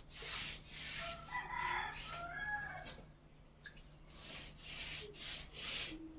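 A rag rubbing a wet mud wash onto a mud-plastered wall in quick repeated strokes, about two a second. A rooster crows in the background in the first half.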